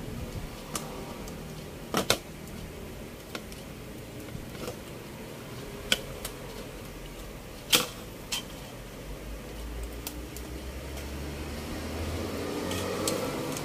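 Scattered sharp clicks and taps as a flat-screen TV's main circuit board is worked loose from its cable connectors and knocks against the metal back panel. Toward the end a louder rustling handling noise builds as the board is lifted out.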